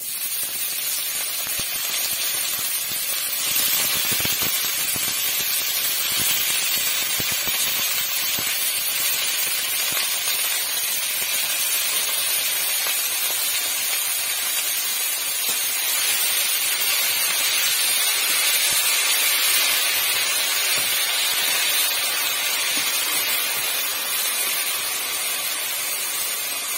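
Chopped amaranth leaves (cheera) tipped into hot oil in a kadai, sizzling and hissing loudly and steadily. The sizzle starts suddenly as the greens hit the oil.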